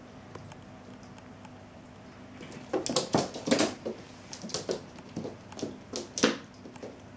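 Cats' paws thumping and skittering on a wooden floor as they run and pounce after a laser dot: an irregular run of quick footfalls starting a little under three seconds in, the thump just after six seconds the loudest.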